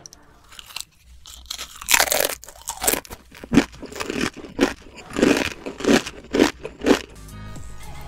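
Close-miked chewing of a Paqui One Chip Challenge tortilla chip: about a dozen irregular, crisp crunches that stop about a second before the end.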